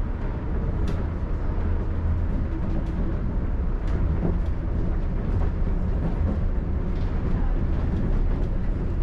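Shonan Monorail car running between stations, heard from inside the car: a steady low rumble from the rubber-tyred suspended monorail, with a few faint clicks.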